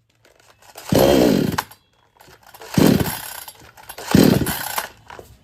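A 58 cc two-stroke chainsaw engine is revved three times over a faint low running sound, and each rev falls away again. The saw is not picking up under throttle, the fault being chased, which the mechanic says can come from weak spark at the plug.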